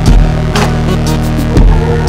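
Electronic background music with a deep bass beat and sustained synthesizer notes.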